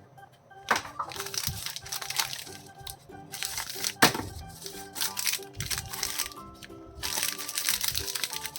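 Plastic snack wrapper crinkling and crackling as a biscuit pack is handled and opened, with two sharp cracks, a second in and about four seconds in, over background music.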